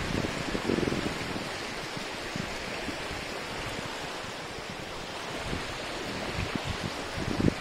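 Small, choppy lake waves breaking and washing up onto a sandy beach: a steady wash of surf, with louder splashes about a second in and again near the end.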